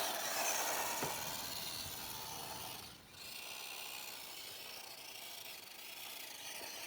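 WPL D12 RC drift truck running, its small brushed electric motor giving a faint whine that rises and falls under a steady rasping scrape from the tyres. The sound dips briefly about three seconds in.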